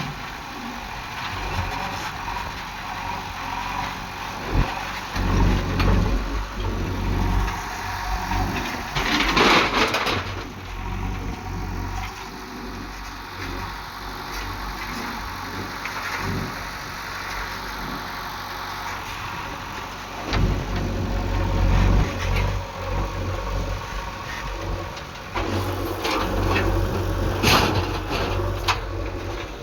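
Heavy-machinery diesel engine running and revving unevenly as it works. There are loud noisy bursts about nine seconds in and again near the end.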